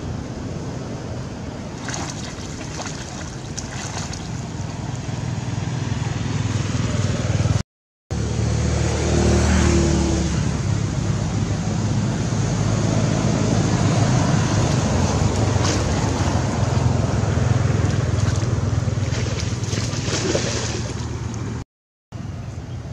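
Steady wind rumble on the microphone with water sloshing and splashing from macaques swimming close by. The sound drops out briefly twice, at edits.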